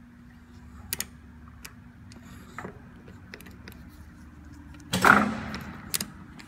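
Speed-change selectors on the headstock of a 1997 Kingston gear-head lathe being shifted: sharp metallic clicks about one, two and a half and six seconds in, over a faint steady hum. About five seconds in comes one loud clunk with a short rattle of gears, as the headstock gears are brought into mesh.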